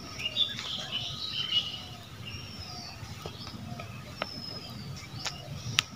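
Birds chirping in short gliding calls, over a few light clicks and rustles of dry twigs as a bundle of firewood sticks is tied together, with one sharper click near the end.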